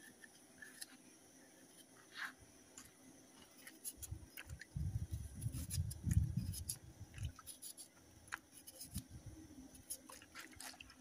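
A kitchen knife cutting raw yam into chunks over a basin of water: faint scattered cuts and clicks, with a low rumble from about four to seven seconds in.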